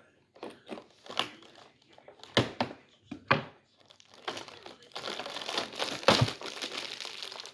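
Cardboard of an advent calendar door being pressed and popped out of its perforations: a few sharp cracks, then from about four and a half seconds in a steadier run of crinkling and tearing of the packaging.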